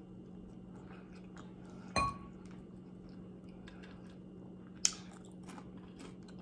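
Eating sounds at a plate: a ringing clink about two seconds in and a sharp tick near five seconds as a fork and long acrylic nails pick at a barbecued rib, with faint chewing and small clicks over a steady low hum.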